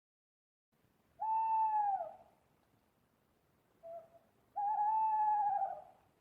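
Owl hooting: a long hoot that falls in pitch at its end, a short soft note, then a longer, slightly wavering hoot.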